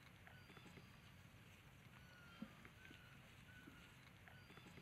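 Near silence: faint outdoor ambience with a low hum, a few short faint chirps and one soft knock, in a pattern that repeats about every four seconds.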